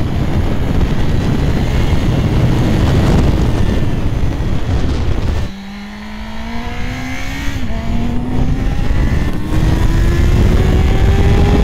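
Motorcycle accelerating hard, heard from onboard with heavy wind rush for the first half. About halfway the wind noise drops and the engine's pitch climbs steadily, dips briefly about two seconds later, then keeps rising.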